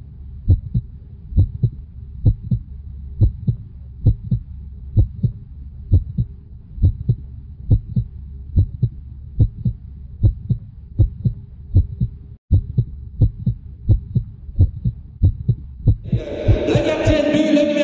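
Heartbeat sound effect: paired low thumps, lub-dub, a little under once a second over a steady low drone, cutting out for an instant about two-thirds through. Near the end a louder, fuller sound swells in and takes over.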